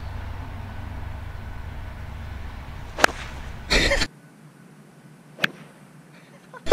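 Golf club striking the ball on a full fairway swing: one sharp crack about three seconds in, followed by a short loud rush of noise, over a low steady rumble. A second, fainter crack comes about two and a half seconds later, the same strike heard again.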